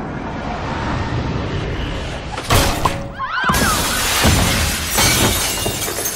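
A glass basketball backboard shattering under a slam dunk: a sharp bang about two and a half seconds in, then a loud crash a second later and shards of glass raining down and tinkling for about two seconds, over film score.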